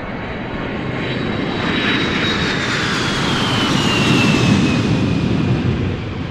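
Jet airliner taking off and climbing away: a steady engine rush that grows louder to a peak about four seconds in, with a high whine slowly falling in pitch.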